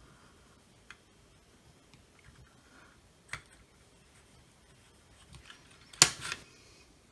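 Soldering-bench work with a soldering iron and copper desoldering braid: a few light clicks and taps, then a sharp clatter of clacks about six seconds in as the braid's spool is handled.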